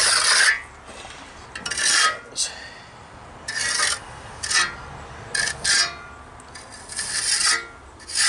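Hand trowel scraping across fresh wet cement in about seven uneven strokes, smoothing and finishing the surface of the repair.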